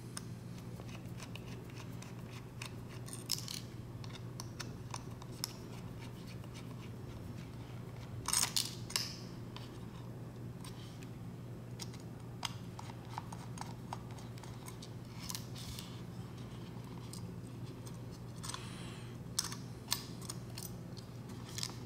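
Scattered light clicks and scrapes of small tools and plastic and metal parts as an Amazon Echo Spot is taken apart, over a steady low hum. The thickest run of scraping comes about eight seconds in, and another near the end.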